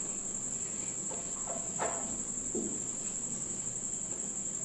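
Marker pen writing on a whiteboard: a few short squeaks and scratches of the strokes between about one and two and a half seconds in, over a constant high-pitched trill.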